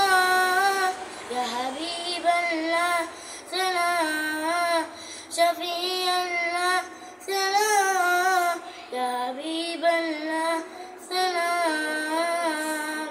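A boy singing a devotional song solo and unaccompanied, in long melodic phrases with wavering, ornamented notes; the singing ends near the end.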